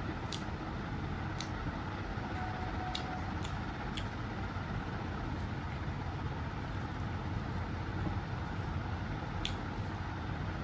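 Eating sounds: about half a dozen short sharp clicks of mouth smacks while chewing food eaten by hand, over a steady low background rumble.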